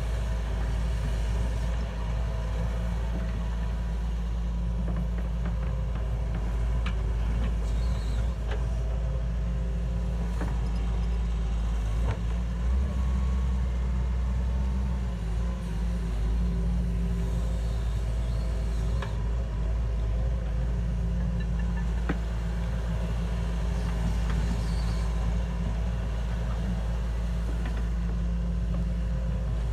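Heavy machine's engine running steadily with a deep rumble and a few light clicks scattered through.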